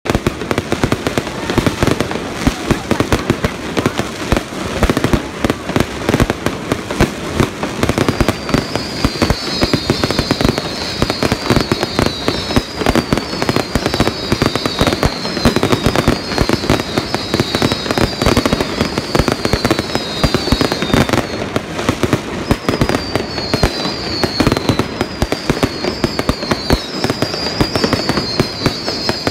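Aerial fireworks display: a dense, continuous barrage of bangs and crackling. From about eight seconds in, clusters of high whistles falling in pitch repeat over the bangs.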